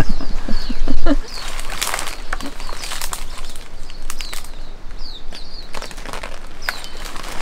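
Rustling and light knocks of a furled umbrella pushed up among a papaya tree's leaves and fruit, with short high bird chirps scattered through it.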